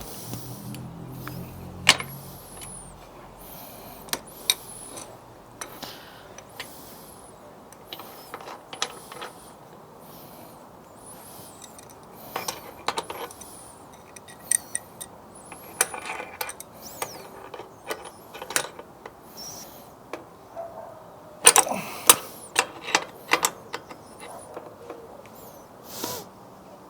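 Irregular metallic clicks and clinks of a spanner working a crank puller threaded into a bicycle crank arm, with a cluster of sharper clanks about three quarters of the way through.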